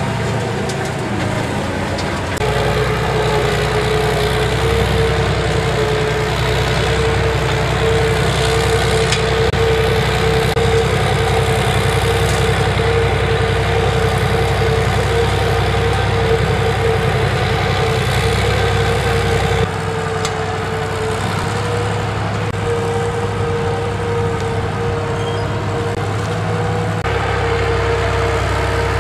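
Heavy tracked trench-digging machine working under load: a steady diesel engine rumble with a constant whine over it. The sound steps up about two seconds in and shifts briefly in the low end past the two-thirds mark.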